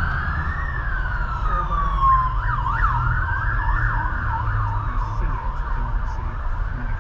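Emergency vehicle siren wailing, its pitch rising and falling slowly, switching to a fast yelp for a few seconds in the middle, then back to a slow wail, over a steady low rumble.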